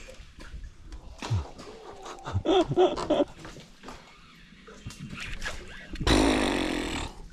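Baitcasting reel buzzing as line runs off its spool for about a second near the end, fading out as it slows.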